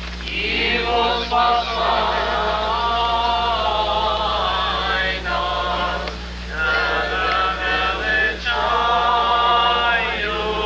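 Male clergy voices singing an Orthodox liturgical chant without accompaniment, in long phrases with short breaks about six and a half and eight and a half seconds in. A steady low hum runs underneath.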